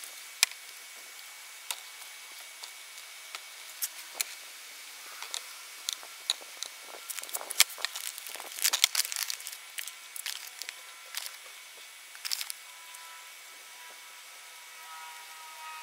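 A brown paper bag crinkling and rustling as it is unrolled and opened, loudest about halfway through, amid scattered sharp clicks and taps from handling the bags and a metal scoop. Faint ringing tones come in near the end.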